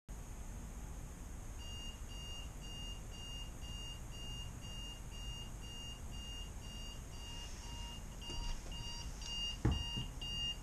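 Electronic alarm going off: short high beeps, about two a second, over a steady low hum. There is a sharp thump near the end, and the beeping stops right after it.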